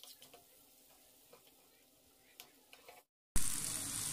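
A metal spoon stirring vegetables in a steel frying pan, with light scattered clicks and scrapes against the pan. About three seconds in the sound cuts out for a moment, then a much louder sizzle of the mixture frying in ghee comes in.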